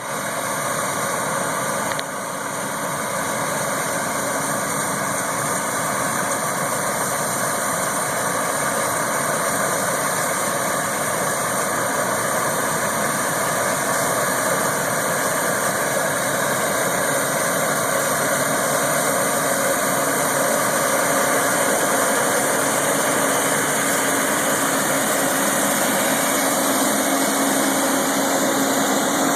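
Case IH 2388 combine running steadily, a constant mechanical hum with several steady tones, heard from inside the cab.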